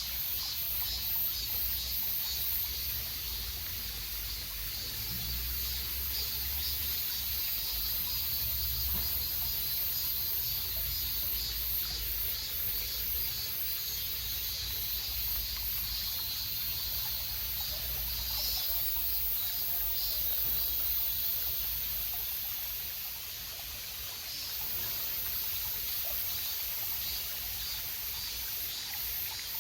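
Outdoor ambience: water trickling and flowing, under a steady high-pitched insect chirring that pulses several times a second, over a low rumble.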